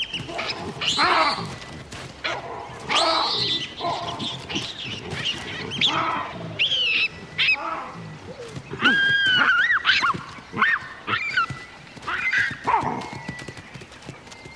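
Baboons screaming in a fight: many short, high cries that rise and fall in pitch, coming in quick succession.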